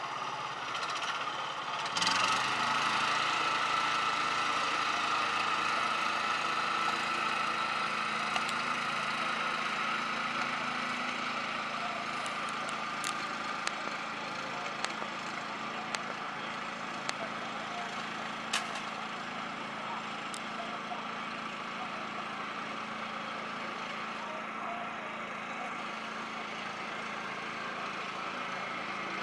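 An engine running steadily in the background, starting up loudly about two seconds in and slowly fading, with a few sharp cracks through the middle.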